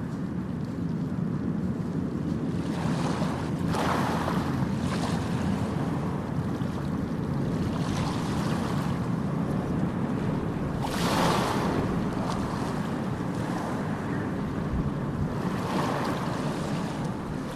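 Ocean waves breaking on a beach, with the surf washing in about four times, loudest a little past the middle, over a steady low rumble of wind on the microphone.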